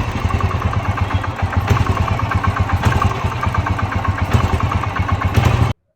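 Royal Enfield motorcycle engine running at idle with a rhythmic knocking clatter, the noise of a worn connecting-rod big-end bearing with side and centre play, the rod knocking against the crank as it turns. It cuts off abruptly near the end.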